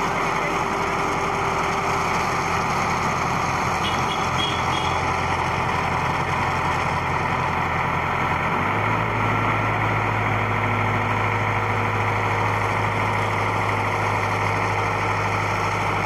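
Transit concrete mixer truck's engine running steadily while the rotating drum discharges wet concrete down the chute, with a steady rushing of concrete sliding. About halfway through the engine note steps up to a higher pitch and holds there.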